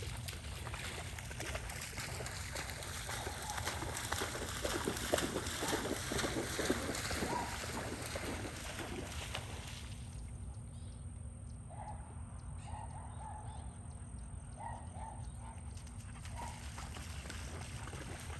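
A husky splashing as it runs through shallow flood water, with water sloshing and spraying and wind rumbling on the microphone. About ten seconds in the splashing stops and a few short bird calls come through. The splashing starts again near the end.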